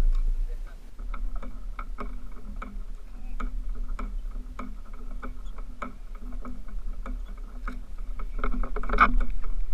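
Spinning fishing reel being cranked, ticking evenly about three times a second, over a low rumble of wind on the microphone.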